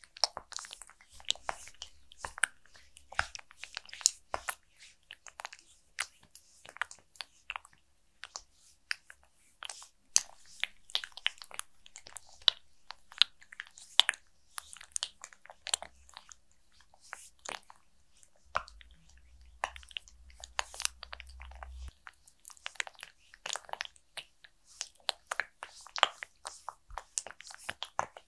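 Close-miked oil massage of a face: a constant irregular patter of tiny wet, sticky clicks and crackles as oiled fingers press and slide over the skin.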